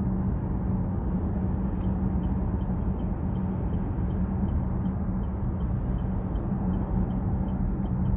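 Chevrolet Trax Crossover driving at expressway speed: steady road and engine noise with a constant low hum. From about two seconds in, a faint regular ticking comes in at about two to three ticks a second.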